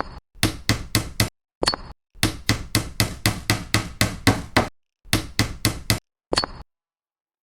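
A series of sharp knocking taps, about three or four a second, coming in runs of several taps with dead-silent gaps between the runs.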